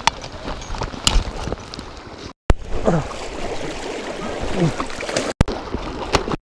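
Flowing river water heard close to the microphone as a steady rushing hiss, cutting out briefly twice.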